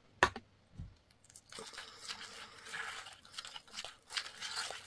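Palette knife stirring and scraping thick homemade sculpture paste in a small plastic tub, working red pigment powder into it. After a couple of light knocks, a gritty, scratchy scraping sets in about a second and a half in and goes on.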